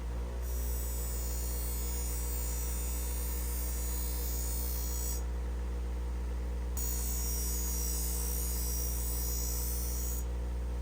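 Steady low electrical-sounding hum with many overtones, like a mains buzz, with a high hiss that cuts out twice for a second or so and comes back.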